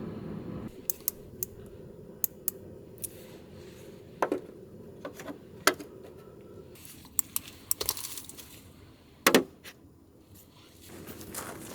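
Scattered sharp clicks and knocks of small hard objects being handled, two of them louder, over a low hum that drops away under a second in.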